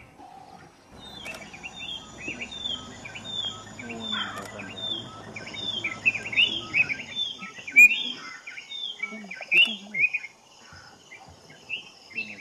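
Birds calling: a steady series of short, high, falling chirps, about two a second, with other bird calls mixed in.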